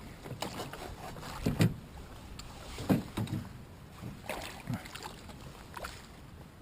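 A few irregular hollow knocks and thumps on a canoe's hull, the loudest about one and a half and three seconds in.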